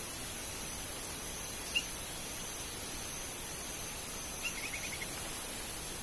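Forest ambience: a steady, very high-pitched insect hiss with faint bird notes, one short chirp about two seconds in and a quick run of about six short notes near the end.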